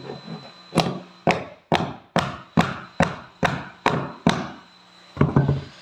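Sharp knocks on wooden floorboards, about nine in a steady run of roughly two a second, then one more near the end.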